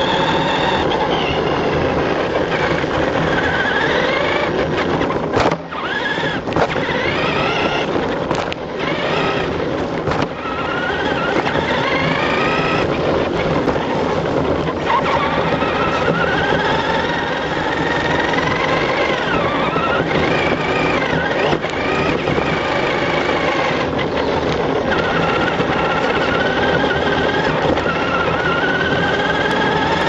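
Remote-control truck's motor whining, its pitch rising and falling again and again as the truck speeds up and slows around the track, over a steady rush of drive and tyre noise on dirt. The sound dips briefly a couple of times, about five and ten seconds in.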